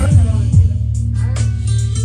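Karaoke backing track playing: music with a deep steady bass line and booming kick drum hits, with no clear singing.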